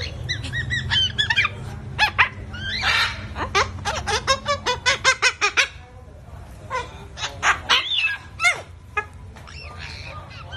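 A pet parrot vocalizing in a rapid run of short squawks, bending whistles and sharp clicks, over a steady low background hum.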